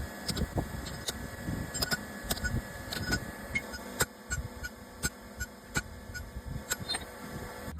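Irregular light taps and clicks of small-scale metalwork, several a second, over a steady hum.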